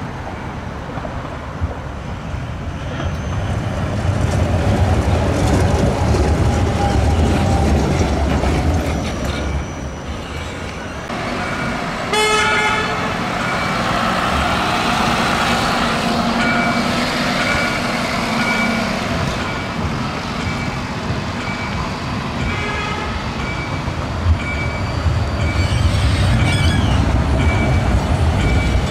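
Tram and road traffic: low-floor electric trams rumbling along their tracks, with a short vehicle horn toot about twelve seconds in. In the second half, short high beeps repeat about once a second while a Bombardier Flexity tram rolls past near the end.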